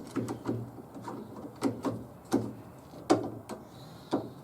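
Irregular clicks and knocks of metal parts being handled and fitted inside a truck door, a dozen or so separate strokes with the sharpest about three seconds in.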